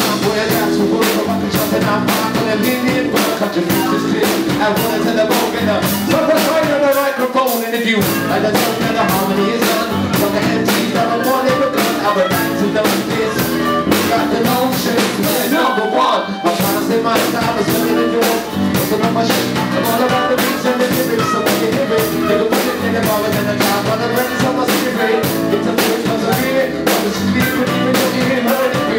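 Live band playing a song: drum kit, electric bass, acoustic guitar and harmonica, with singing.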